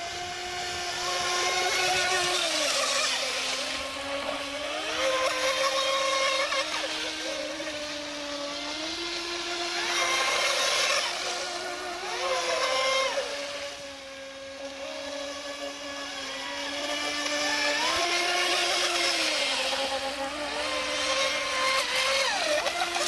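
Radio-controlled model speedboats running fast: a steady motor whine that steps up and down in pitch, over the hiss of the hulls cutting through the water. It swells and fades every few seconds as the boats pass.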